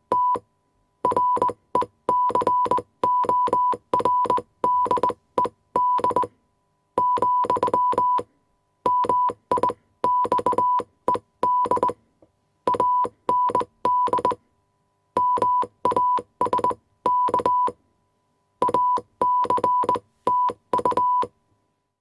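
Morse code sent on a hand telegraph key: a 1 kHz tone beeps on and off in short and long elements, with the key's clacks at each press and release. It comes in groups with pauses of up to about a second between them, and stops about a second before the end.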